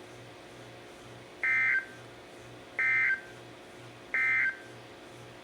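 Emergency Alert System end-of-message signal: three short bursts of warbling two-tone digital data, about a second and a half apart, marking the end of the severe thunderstorm warning. A faint low hum pulses underneath.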